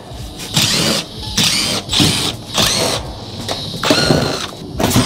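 Cordless power driver spinning out sheet-metal screws from an HVAC package unit's panel, run in about six short bursts whose pitch rises and falls with each pull of the trigger.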